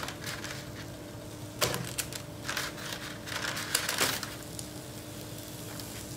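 Kitchen tongs clicking and eggplant slices being set down on parchment paper, with the paper crinkling: several short clicks and rustles in the first four seconds, then quieter.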